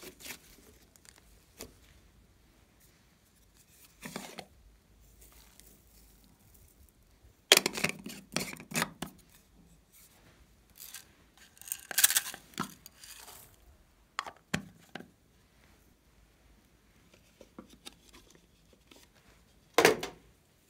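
Hands handling and squishing slime and small toppings and containers: quiet fiddling broken by a few loud crackly, tearing-like bursts, and a short sharp click near the end.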